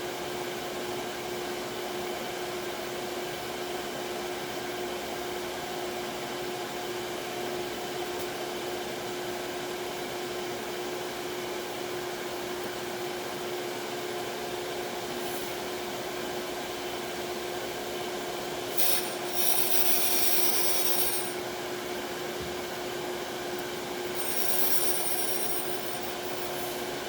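Surface grinder running with a steady hum as the table moves up and back under the abrasive wheel. Twice, for about two seconds about two-thirds of the way in and again near the end, there is a hissing grind as the wheel touches high spots on the magnetic chuck face.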